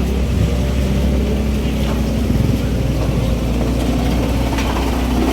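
A vehicle engine running steadily, a constant low drone.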